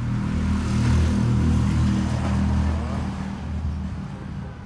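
A small engine running, growing louder about a second in and fading again near the end.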